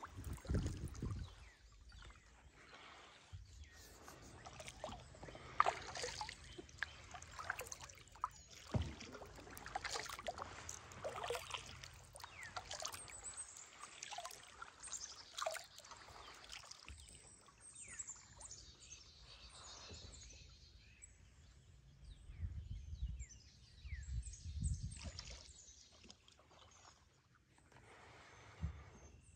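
Quiet kayak paddling: water trickling and dripping off the paddle blades and sloshing against the hull with each stroke. In the later part birds chirp high in the background, with a few dull low thumps.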